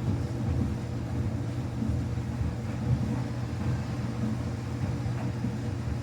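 Samsung washing machine running a quick-wash cycle with a towel load: a steady low motor hum with an uneven rumble from the drum.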